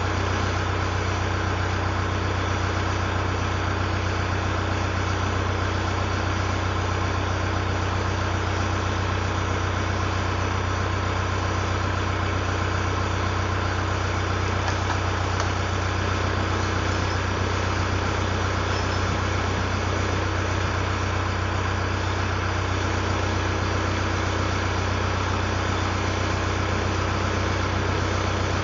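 Vehicle engine idling steadily, an even low hum with no changes.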